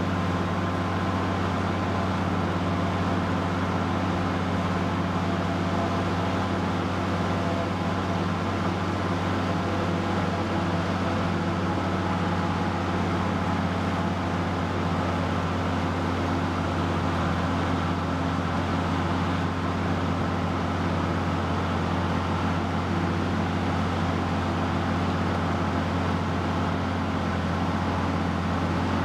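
Tractor diesel engine running steadily under load as it pulls through a wet field, a constant low drone with no change in pitch.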